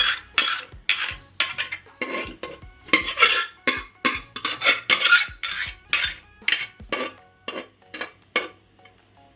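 A spoon stirring in a cooking pot of boiling dal, knocking and clinking against the pot several times a second, thinning out and stopping near the end.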